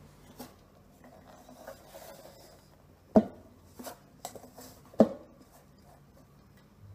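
Fingers rubbing and mixing dry wheat flour with salt and oil in a metal bowl, a soft rubbing noise broken by a few sharp knocks against the bowl, the two loudest about three and five seconds in.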